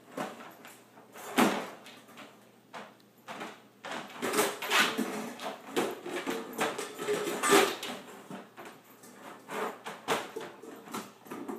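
A puppy knocking a cup about against the bars of a metal wire crate: a run of irregular clattering knocks and rattles, with one sharp knock early on and the densest rattling in the middle.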